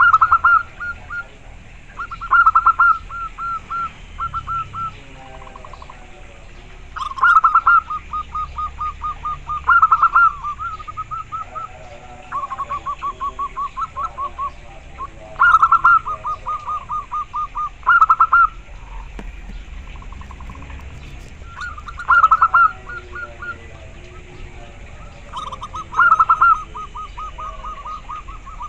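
Zebra dove (perkutut) singing: about eight phrases, each a loud opening coo followed by a fast run of short, even coos, a new phrase every few seconds. Fainter, lower runs of notes fill some of the gaps.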